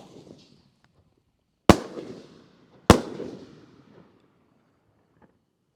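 Two loud booms about a second apart from a 6-inch canister aerial firework shell bursting in its double break, each followed by a rolling echo that dies away.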